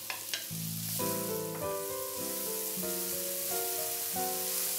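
Minced onion and garlic sizzling as they fry in a pan, a steady hiss, with background music playing a melody over it.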